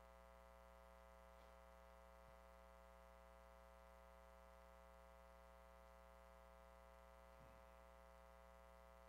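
Near silence: room tone with a faint, steady hum.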